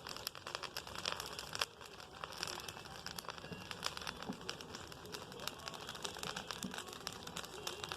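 Bonfire crackling, with a quick, irregular scatter of small pops and snaps throughout.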